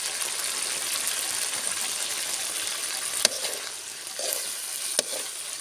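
Spice masala paste sizzling as it fries in a wide aluminium pan while being stirred, with the metal spatula clicking against the pan twice, about three seconds in and near the end.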